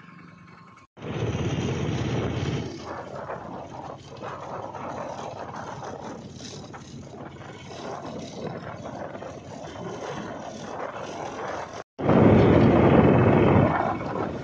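Wind and road noise while riding in an open auto-rickshaw, rumbling steadily with wind buffeting the microphone. It grows louder for a couple of seconds near the end.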